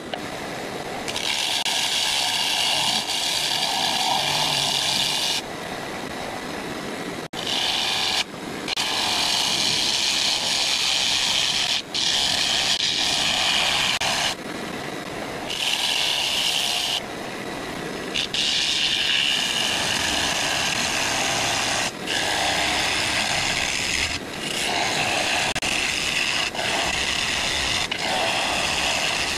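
Bowl gouge cutting the inside of an ash bowl spinning on a wood lathe: about eight hissing cutting passes, each one to four seconds long, with short breaks between them in which the lathe keeps running.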